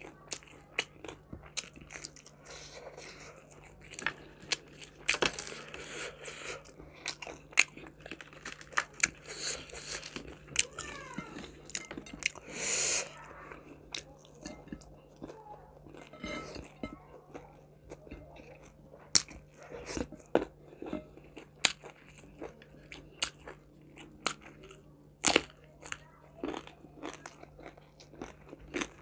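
A person chewing and crunching fried salted fish and rice eaten by hand, close to the microphone, with many sharp wet mouth clicks and crackles. A faint steady hum runs underneath.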